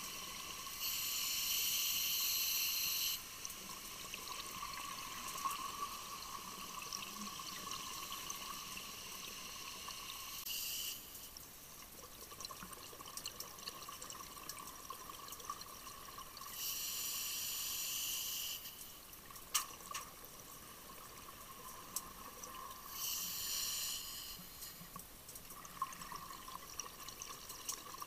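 Scuba diver breathing underwater through a regulator: a hiss of one to two seconds comes back every five to seven seconds, with bubbly, trickling water sound and a faint steady tone in between.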